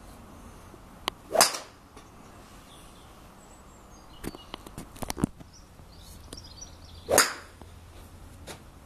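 Two golf swings off a driving-range mat: a quick swish of the club through the ball about a second and a half in, and again about seven seconds in. A few sharp clicks come in between.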